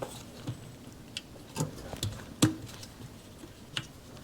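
Light, irregular metallic clicks and taps as a motorcycle gearbox shift shaft is worked into the engine crankcase, its spring ends being eased around the eccentric and its arm over the shift drum.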